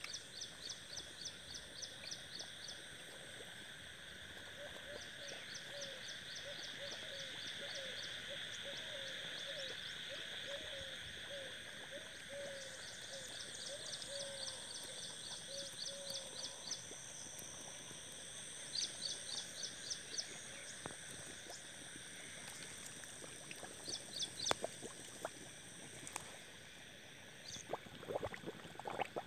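Outdoor chorus of frogs and insects calling in a wet field: steady high-pitched insect buzzing and trilling, rapid repeated chirp series, and a low call repeated about twice a second through the first half. A few sharp clicks and thumps come near the end.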